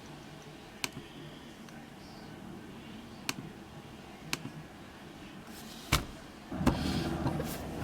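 Four short sharp clicks, one to two seconds apart, then a louder muffled rustling or handling noise starting near the end.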